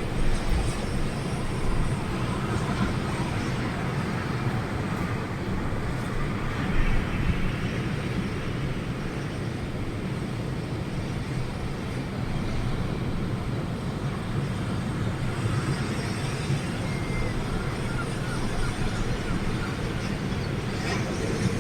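Strong storm wind gusting and buffeting the microphone, a steady low rumbling noise that swells and eases.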